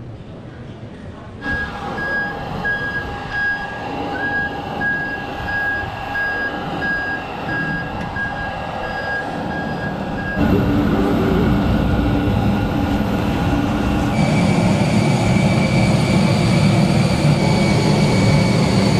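Steady whine and rumble of a jet airliner and ground equipment at the airport, stepping up abruptly about ten and fourteen seconds in; through the first part a high beeping tone sounds on and off.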